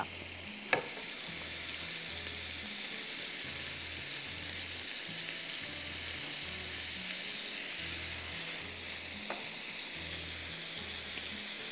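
Oil sizzling steadily in a pan as food fries, with a faint click near the start and another near the end.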